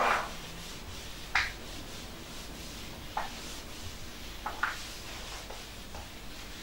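Writing on a board or page: a handful of short, sharp scratches and taps of the writing tool, the loudest right at the start and a quick pair a little past the middle, over low room hiss.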